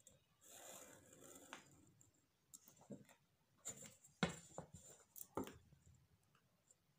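Faint rustling and a scattering of light clicks and taps from a paper pattern, a steel ruler and a pen being handled on a tabletop. The loudest tap comes about four seconds in.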